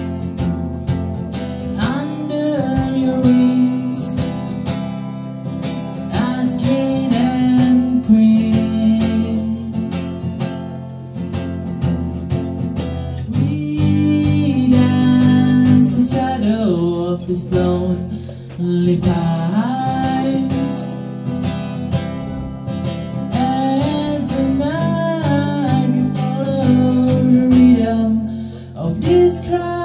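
Music led by acoustic guitar, played without a break.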